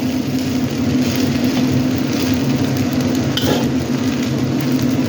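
Fried rice with vegetables sizzling in a hot pan as it is stirred, with a few short scrapes of the stirring utensil against the pan. A steady low hum runs underneath.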